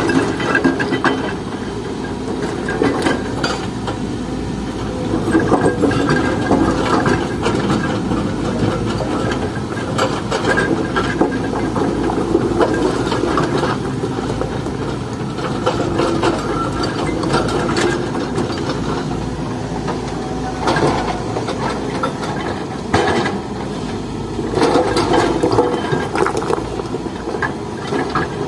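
Excavator at work: an engine running steadily under a constant rattling and clattering.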